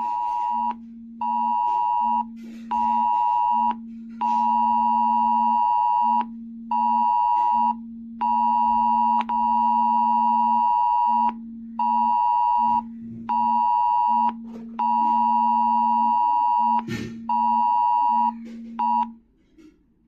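Smartphone emergency alert tone from a cell-broadcast test alert: a loud beeping tone sounding in on-off bursts of uneven length, with a lower buzz alongside each burst. It stops shortly before the end.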